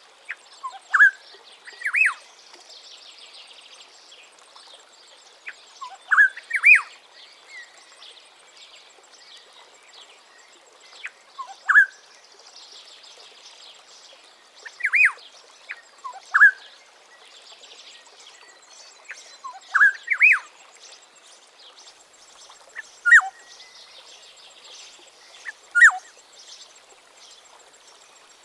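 African black-headed oriole singing: short, liquid whistled phrases repeated every three to five seconds. Behind them runs a steady, fainter, higher-pitched chorus of other birds or insects.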